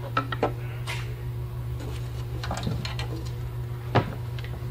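Small hard parts and cables being picked up and moved on top of an equipment box: a few light clicks and clinks and one louder knock near the end, over a steady low hum.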